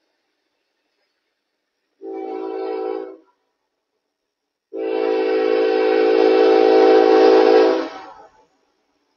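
Locomotive air horn of the approaching Norfolk Southern ES44AC #8105, leading its train. It gives a short blast of about a second, then about a second and a half later a longer blast of about three seconds that grows louder before cutting off.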